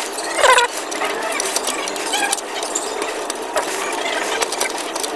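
Hand ratchet clicking in short runs as a bolt on the alternator bracket is turned, with scattered metal clicks over a steady background hiss.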